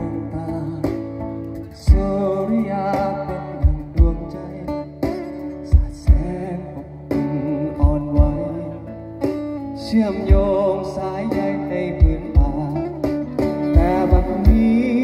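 Live acoustic music: two acoustic guitars played through a PA system, with a wavering melody line over the strummed chords and low thumps roughly on the beat, between sung lines.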